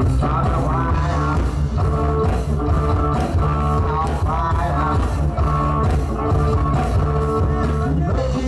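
Loud dance music with a steady beat and a strong bass line.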